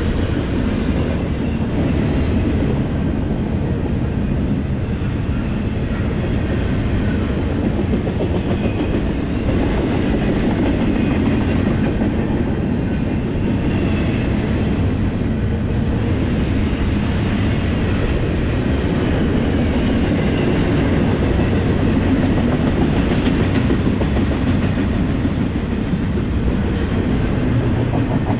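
Double-stack intermodal container train rolling past: a steady rumble of steel wheels on rail, with clickety-clack as the well cars' wheels pass over rail joints.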